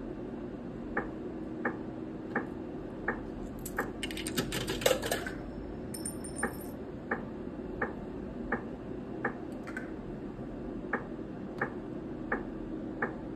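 Video slot machine ticking steadily, about one and a half ticks a second, while its reels spin. A quick clatter of clicks comes about four seconds in, and a short high beep about two seconds later.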